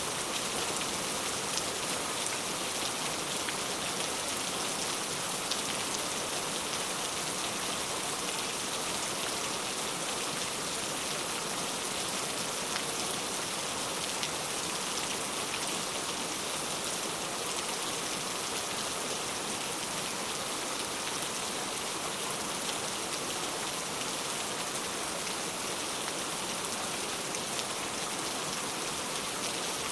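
Steady rainfall, an even hiss of rain with many small drops pattering on a surface.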